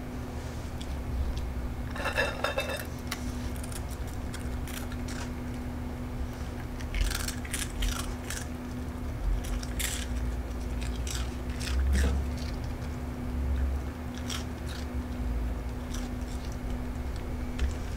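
Yorkshire terrier chewing and crunching pieces of homemade dried pollack treat, with scattered sharp clicks of teeth and snapping bits. A brief high squeak about two seconds in.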